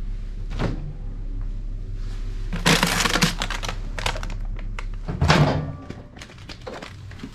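Handling noises in a small room: clicks and rustling over a low steady hum, with a louder clattering rustle about three seconds in and a thump about five seconds in, after which the hum stops.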